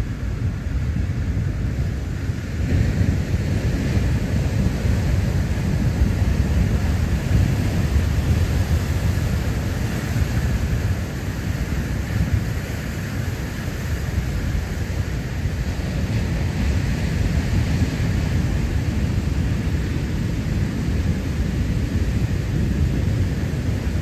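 Big ocean surf breaking on a black lava-rock shoreline: a continuous deep wash of noise from the waves that keeps rising and falling in loudness as sets come in.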